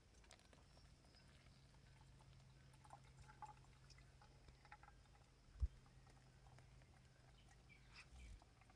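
Near silence: a faint steady low hum with scattered soft ticks, and one short thump a little past halfway.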